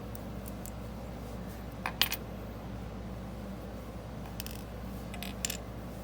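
Small metal lock parts and tweezers clinking as the last spool pin and spring are picked out of a padlock's plastic core. The loudest clink comes about two seconds in, with a few lighter ticks and clinks near the end.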